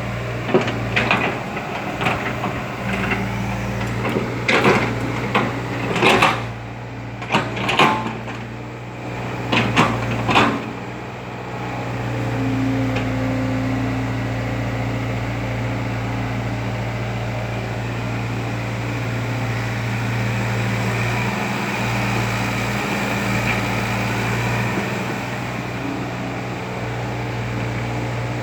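Kobelco excavator's diesel engine running steadily, with a series of sharp knocks and clanks over roughly the first ten seconds as it works soil, then only the engine.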